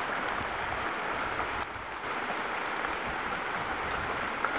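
Flowing river water, a steady rushing noise.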